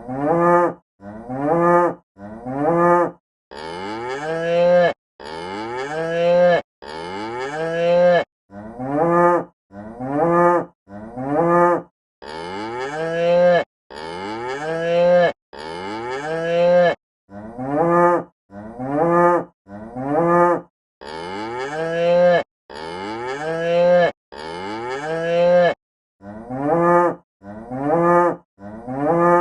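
Cow mooing over and over, in repeating groups of four short moos followed by three longer ones, each moo rising in pitch, with brief silent gaps between.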